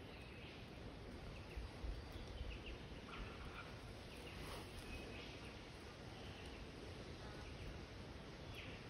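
Quiet bush ambience: a faint low rumble, with a few brief bird chirps.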